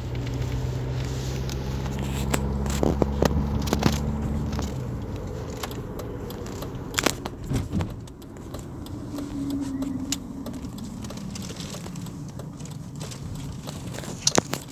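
Car engine running, heard from inside the cabin as a steady low hum, with scattered clicks and rattles. The hum fades out about five seconds in, and a quieter engine and road noise follows.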